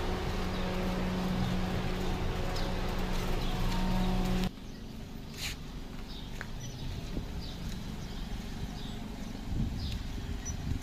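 A steady mechanical hum, a low drone with a few higher tones, cut off abruptly about four and a half seconds in. After that, the quieter low rumble of a Toyota Yaris sedan's engine as the car creeps along, with scattered faint bird chirps.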